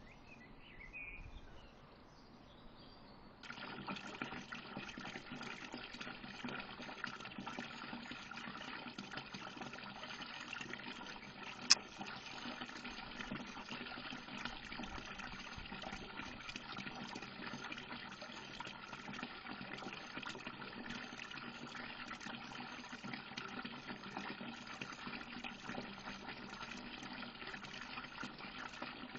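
Faint steady hiss of outdoor ambience picked up by the security camera's own microphone, starting about three and a half seconds in, with one sharp click near the middle.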